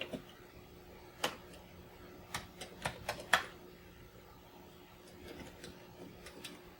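Keys of a freshly cleaned Commodore 64 keyboard clicking as they are pressed: a handful of irregular sharp clacks, bunched together in the middle, then a few fainter taps near the end.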